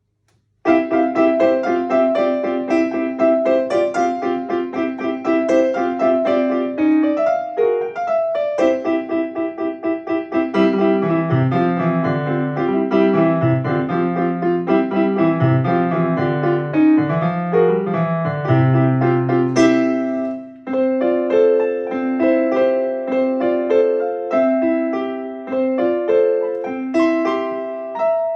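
Solo piano playing a short, lively student piece. It begins about a second in with a repeated treble figure, and a lower bass line joins partway through.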